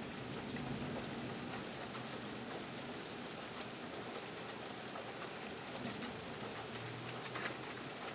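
Heavy rain falling steadily during a severe thunderstorm, an even hiss of rain. A few sharp ticks of drops hitting something close by stand out about five to seven seconds in.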